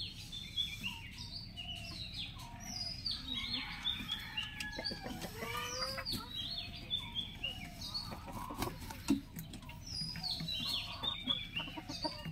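A flock of chickens clucking, with a constant stream of short, high chirps that fall in pitch over the lower calls; no full crow.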